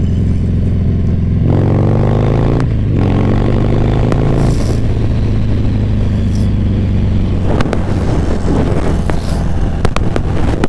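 Harley-Davidson Milwaukee-Eight 114 V-twin motorcycle engine running steadily. Its revs rise in pitch about a second and a half in, then drop back.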